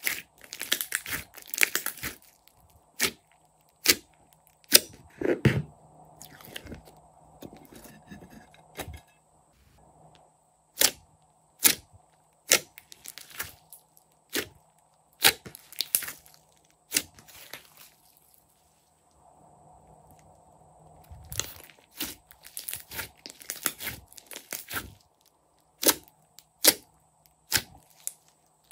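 Glossy slime being squeezed, kneaded and pressed flat by hand: a run of sharp, irregular pops and clicks, thickest near the start and again about three quarters through.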